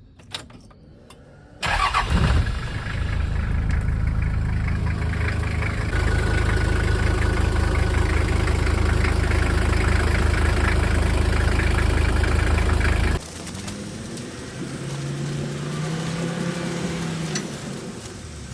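Toyota Land Cruiser 70 engine started after a click, catching at once and running steadily; it gets louder about six seconds in, then drops abruptly to a quieter running sound whose pitch rises and falls near the end.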